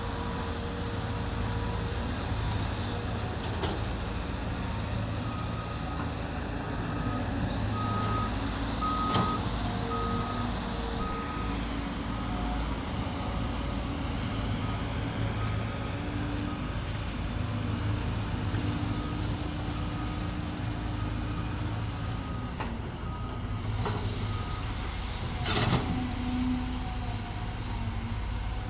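Caterpillar hydraulic excavator engine running steadily under load as it digs soil, with a reversing alarm beeping at about one and a half beeps a second for several seconds early on and again briefly later. A single loud knock near the end.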